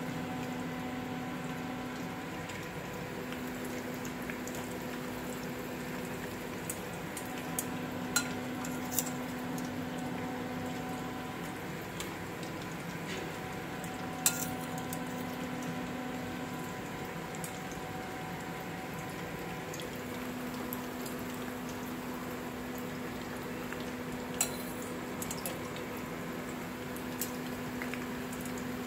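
Potato chips frying in hot oil in a frying pan: a steady sizzle. A few sharp clicks of metal utensils against dishes stand out, over a low hum that cuts in and out every few seconds.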